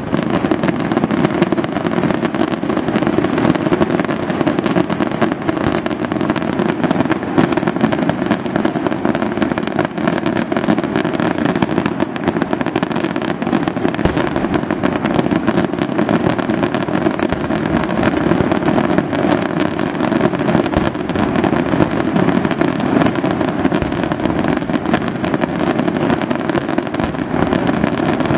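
Fireworks display: a dense, unbroken barrage of aerial shell bursts and crackling, the bangs coming too fast to count and the level never dropping.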